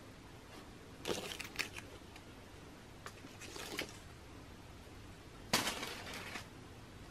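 Quiet handling sounds as a sneaker is held and turned over in the hand: a few soft brief rustles, then a sharper knock about five and a half seconds in.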